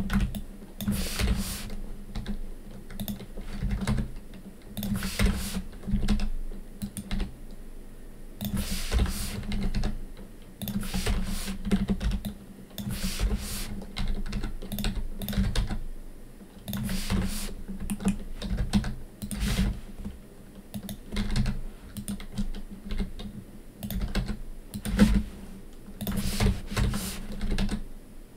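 Computer keyboard keys pressed in irregular clusters as modelling shortcuts are typed, the clicks coming in uneven bursts with short pauses between.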